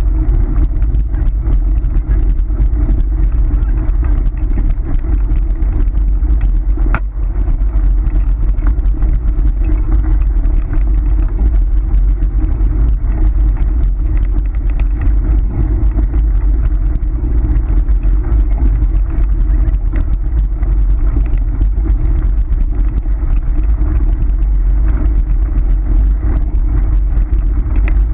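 Kick scooter's wheels rolling fast over a gravel road as a malamute pulls it, a steady, loud rumble heaviest in the low end.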